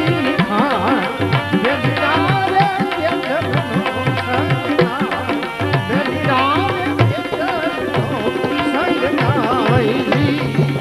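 Instrumental music from a Gujarati bhajan: tabla keeping a steady rhythm under a wavering, gliding melody line and held tones.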